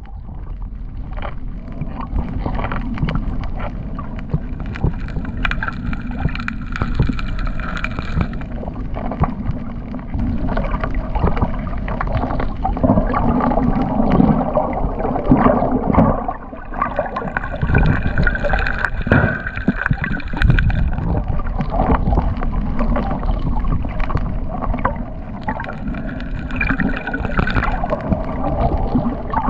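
Underwater water noise picked up by a camera just below the surface: a steady, muffled rush and gurgle of moving water, with many small crackling clicks throughout.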